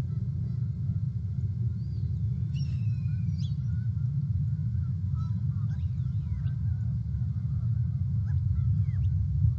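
Steady low rumble picked up by an outdoor nest-cam microphone, with faint wild-bird calls scattered over it: short rising and falling chirps and calls throughout.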